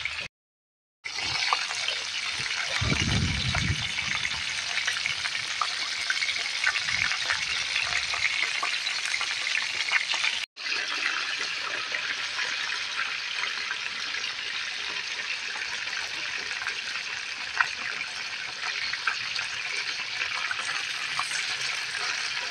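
Flour-coated chicken pieces deep-frying in a wok of hot oil: a steady sizzle with crackling. It cuts out for under a second just after the start and again for an instant about ten seconds in.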